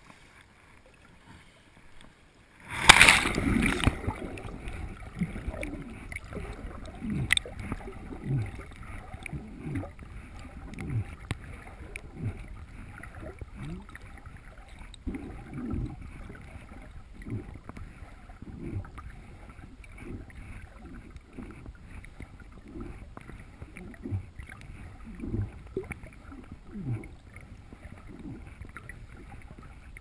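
A splash as the camera plunges into the lake about three seconds in, then muffled underwater sound of a swimmer's strokes: low churning with repeated short gurgles that drop in pitch.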